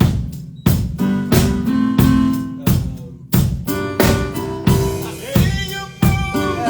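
Live band music: a drum kit keeping a steady beat, a little under two strikes a second, under sustained keyboard chords and bass notes, with a wavering melody line entering about halfway through.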